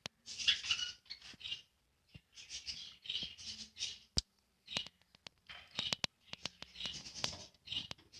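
Budgerigars chirping and chattering in short, broken bursts, with a few sharp clicks among them.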